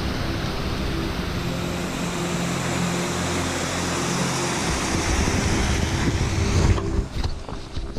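Strong mountain wind blowing steadily in a blizzard, a loud even rush that stops abruptly about seven seconds in.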